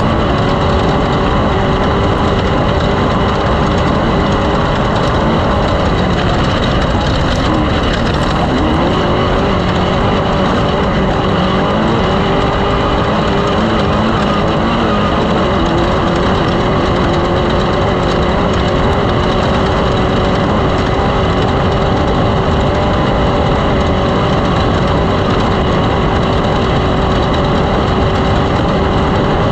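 A loud engine running steadily, its pitch dipping and rising again once about a third of the way in.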